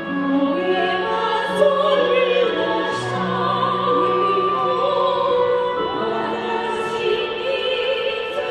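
Women singing a Chinese song into microphones, with vibrato, over a recorded accompaniment of held low notes that change every second or two.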